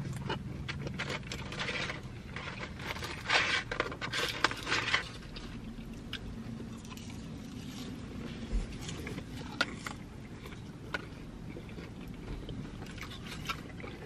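Eating fast food in a car: rustling of a paper takeout bag and wrappers and a plastic fork scraping in a cup, in scattered short bursts, busiest a few seconds in, over a low steady hum.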